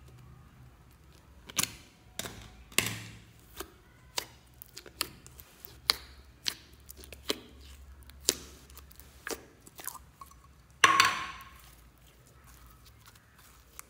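Thick slime being poked and pressed in its plastic tub and then pulled out and stretched by hand, making irregular sticky pops and crackles, with a longer, louder crackling burst about eleven seconds in.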